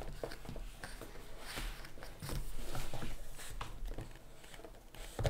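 Hands handling cardboard packaging and its contents: light rustling and scattered soft knocks, with a longer stretch of rustling about two to three seconds in.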